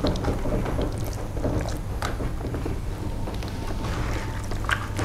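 Hands mixing chicken pieces through spice paste in a large clay bowl: irregular wet rubbing with many small clicks, over a steady low hum.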